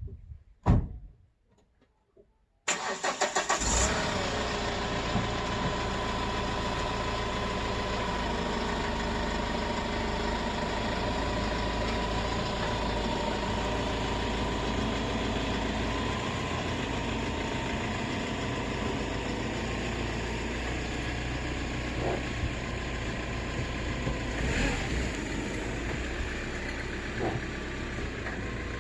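A truck engine starts about three seconds in and settles into a steady idle, after a single short knock.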